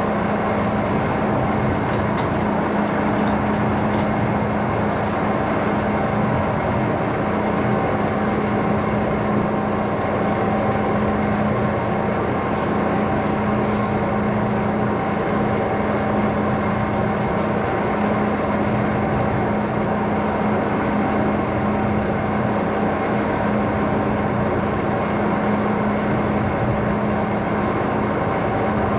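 A machine running steadily with a constant low hum over a broad, even noise. A few faint, short high squeaks about a second apart come in midway.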